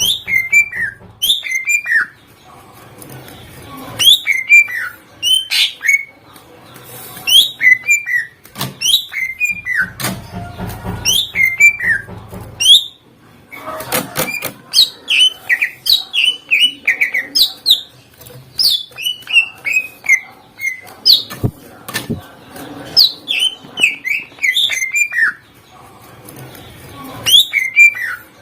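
Cucak ijo (greater green leafbird) singing loudly in repeated bursts of rapid, sharp down-slurred whistles mixed with short sharp clicks, with brief pauses between phrases. The song is packed with mimicked fills ('full isian') from other birds.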